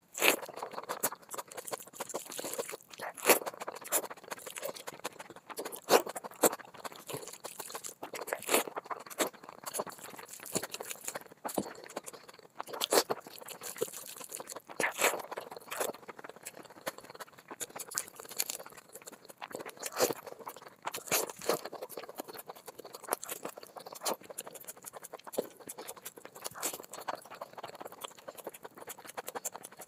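Close-miked eating by hand: wet chewing and lip smacks, with fingers squishing and mixing rice and curry, heard as a rapid, irregular run of clicks and smacks.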